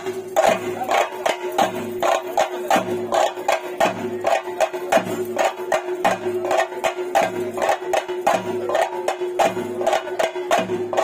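Theyyam ritual drumming: chenda drums beaten in a fast, even rhythm of sharp strokes over a steady held note.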